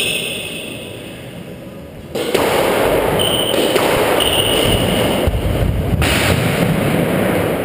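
Squash rally on a wooden court: rackets striking the ball and the ball hitting the walls, with shoes squeaking on the floor. From about two seconds in, a loud steady rushing noise lies under it all.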